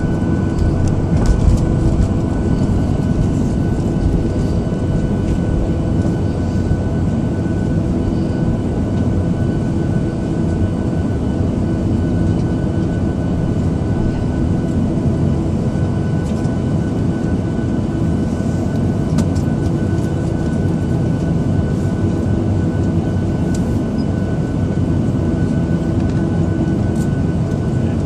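Cabin noise of a Boeing 737-700 with its CFM56-7 turbofans at low power while taxiing: a steady rumble with a constant engine whine running through it.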